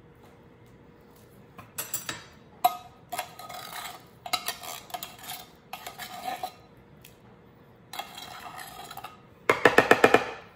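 Table knife scraping condensed cream of mushroom soup out of a metal can, a run of uneven metal-on-metal scrapes and clinks. Near the end the knife gives a quick series of about eight sharp, ringing taps.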